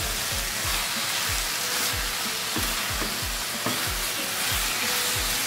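Potato and capsicum sabzi sizzling in a hot non-stick pan while being stirred and tossed with a wooden spatula. The steady frying hiss is from the dry-frying (bhuno) stage on a raised flame, once the vegetables' own juices have cooked off.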